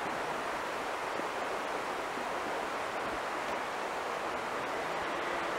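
A steady, even rushing noise with no distinct events, like a wind or ambience bed.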